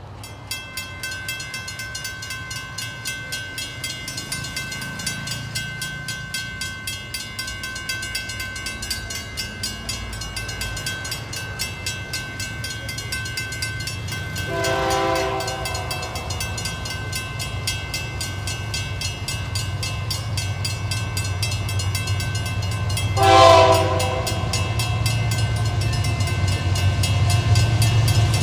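Empty iron-ore train rolling by, its wagon wheels clacking in a steady rhythm under a steady high ring from the rails. A GE AC44i diesel-electric locomotive horn sounds two blasts, one about halfway through and a shorter one near the end, while a low locomotive engine rumble grows toward the close.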